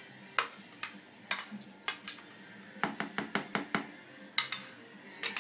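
Utensils clinking and scraping against a mixing bowl and container while the last of the orange and melted-butter mixture is scraped out into cake batter: an irregular string of sharp clinks, bunched together a little past halfway.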